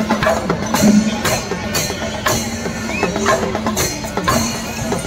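Kerala temple-festival percussion ensemble playing: rapid drumming with hand cymbals clashing about twice a second, over a steady held tone.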